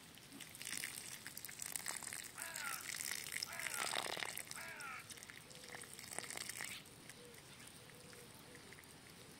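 Water gushing and splashing, with a few short high calls over it, stopping about seven seconds in.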